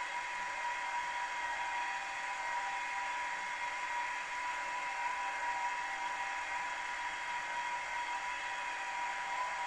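Milling machine spindle running with a steady whine, a centre drill in its chuck.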